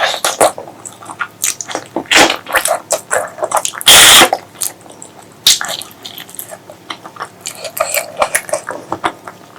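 Close-miked eating sounds of spicy pork leg curry and rice: wet chewing and lip smacking in quick, irregular clicks, with one loud, short burst about four seconds in.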